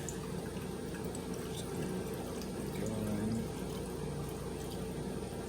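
Water pouring steadily through a funnel into a hummingbird feeder's reservoir as it is filled.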